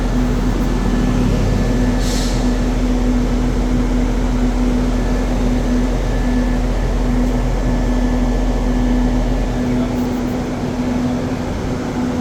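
Diesel passenger train standing at a station, its engines idling with a steady hum and a droning tone. There is a short hiss about two seconds in, and the deepest rumble fades away near the end.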